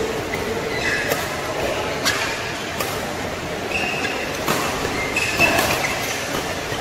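Badminton doubles rally: rackets striking the shuttlecock every second or so, with short high squeaks of shoes on the court, over the steady noise of a large hall.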